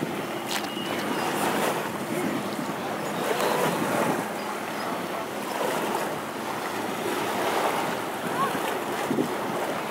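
Small waves washing and lapping, with wind on the microphone.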